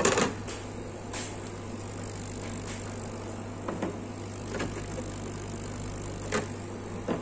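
Steady low electrical hum from workbench equipment, with a few faint clicks and taps as the circuit board is handled.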